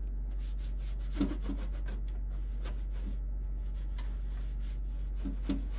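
A duster rubbing over a computer part in short repeated wiping strokes, with a few light knocks about a second in and near the end, over a steady low hum.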